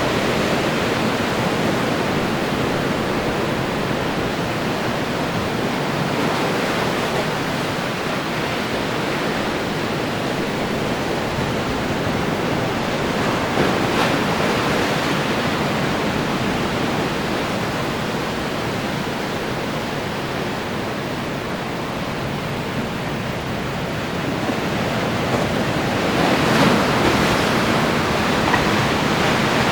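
Ocean surf washing steadily against the shore. Near the end a wave breaks and the surge grows louder for a couple of seconds.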